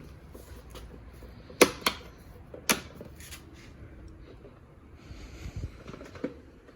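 Plastic clips of a car side-mirror cover snapping and knocking as the cover is pressed into place: three sharp clicks close together in the first few seconds, then lighter taps and handling noise.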